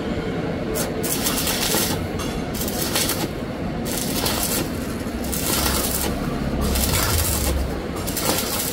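Stick-welding arc crackling and hissing as a coated electrode runs a bead on thin steel pipe, coming in uneven on-off spurts of roughly half a second to a second.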